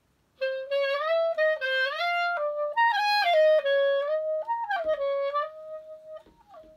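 Clarinet playing a solo melodic phrase of quick, shifting notes, reaching its highest notes about three seconds in and settling onto a held note near the end.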